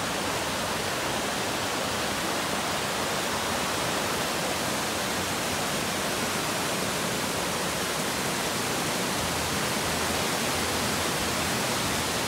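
A mountain creek tumbling over rocks in small whitewater cascades, a steady rushing noise that doesn't let up.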